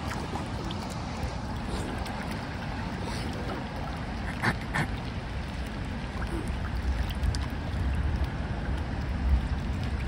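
Wind buffeting the microphone over choppy lake water, the rumble growing stronger from about six seconds in, with two short sharp sounds near the middle.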